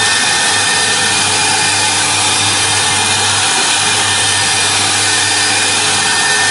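CNC router spindle running steadily as its thin engraving bit cuts a white foam cylinder turning on the rotary axis. It gives an even, unbroken whir with a low hum underneath.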